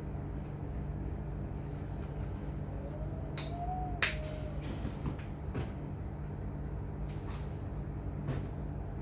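Sharp clicks and light knocks over a steady low hum, with two loud clicks close together about three and four seconds in and a few fainter ones later.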